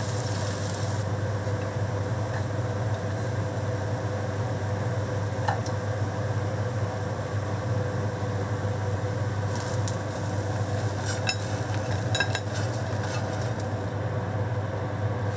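Food sizzling in frying pans on a gas hob, with clicks and clinks of chopsticks and a metal spatula against the pans and plate, most of them between about ten and thirteen seconds in, under a steady low hum.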